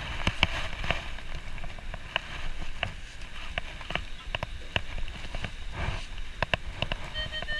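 Low wind rumble on the microphone with scattered sharp clicks. In the last half second a Minelab CTX3030 metal detector starts its target tone, a steady beep broken into short pulses, as the coil passes back over the freshly dug hole.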